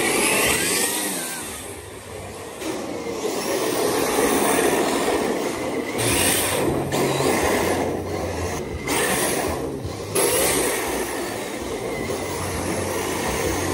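RC drift car being driven around an indoor track: its electric motor whines and rises and falls with the throttle, and its hard drift tires hiss as they slide across the track surface.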